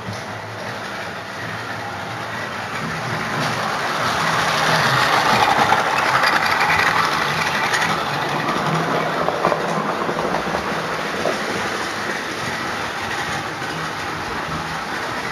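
Model train running along the track, its electric motor humming under a rattle of wheels on the rails. It grows louder as it comes nearest about five to eight seconds in, then fades.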